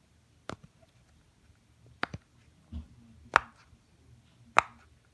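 Bubbles of a silicone pop-it fidget toy being pushed in one at a time by a thumb, giving a short sharp pop every second or so, about five in all.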